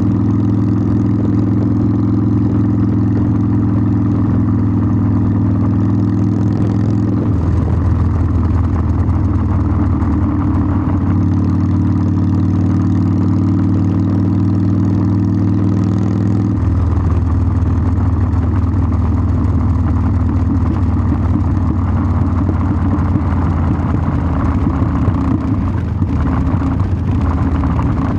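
Harley-Davidson Sportster 1200's air-cooled V-twin engine running through its exhaust, a steady low note that changes pitch twice, about seven seconds in and again about sixteen seconds in.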